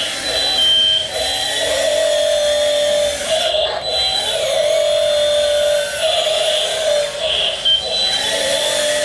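Electric motor and hydraulic pump of a 1/16-scale RC excavator whining steadily, the pitch rising and falling every second or two as the arm and bucket work under changing load.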